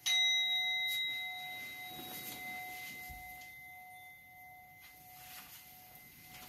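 A Buddhist bowl bell is struck once and rings out a clear tone with higher overtones, slowly fading over about six seconds. In a Soto Zen service this bell marks the assembly's prostration.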